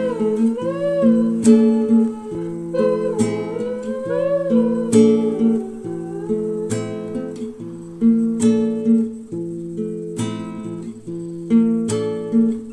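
Background music: strummed acoustic guitar chords, with a wavering melody line over them twice in the first few seconds.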